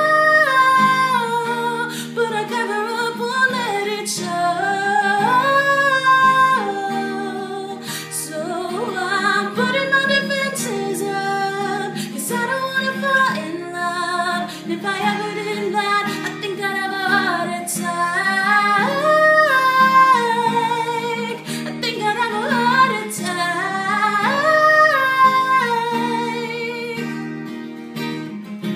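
A woman singing a pop song while strumming chords on an acoustic guitar.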